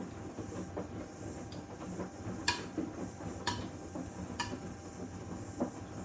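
Panasonic VX6 front-loading washing machine in the main wash of its Mud programme: the drum is turning the wet load in a steady low churn. Three sharp clicks come about a second apart midway through.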